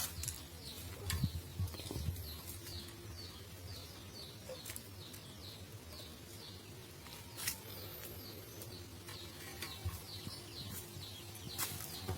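Small songbird chirping steadily: short, high, downward-sliding calls about two a second, with a few sharp clicks or taps in between.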